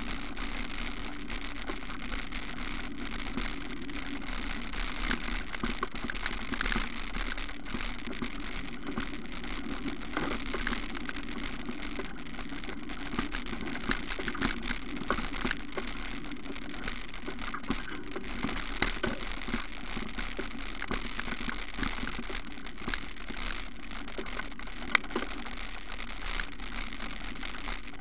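Steady rushing, crackling noise with many small clicks: wind and handling noise on a camera's microphone as it travels along a dirt footpath, with one sharper click near the end.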